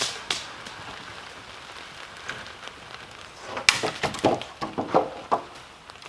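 Dry dead wood cracking and snapping as it breaks: a couple of snaps at the start, then a burst of sharp, irregular cracks about three and a half seconds in.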